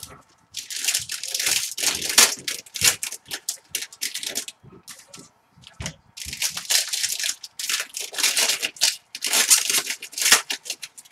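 Plastic trading-card pack wrappers crinkling and tearing in irregular bursts as packs of football cards are opened and handled, with a short quieter gap in the middle.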